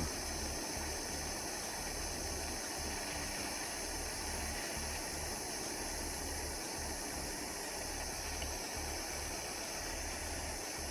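Steady hiss with a low, wavering hum underneath and no distinct events.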